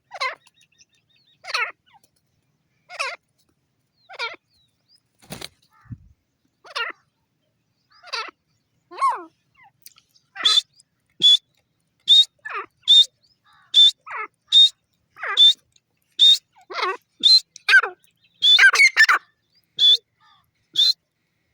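Francolin (teetar) calling over and over in short, harsh notes, about one every second and a half at first. About halfway through the calls come faster and louder, each with a sharp high start, bunching together near the end. There is a single low knock about five seconds in.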